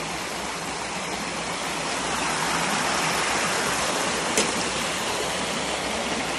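Small creek running high and fast, its water rushing and churning over rocks in a steady roar of white water. One brief click a little past four seconds in.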